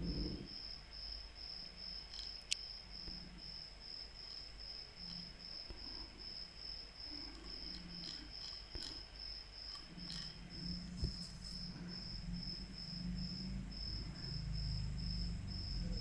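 A cricket chirping steadily in the background, a high-pitched pulse about three times a second. There is one sharp click about two and a half seconds in.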